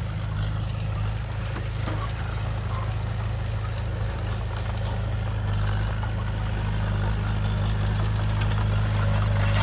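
Heavy diesel engine of earthmoving machinery running steadily at a low, even note, growing slightly louder near the end, with a few faint clicks about two seconds in.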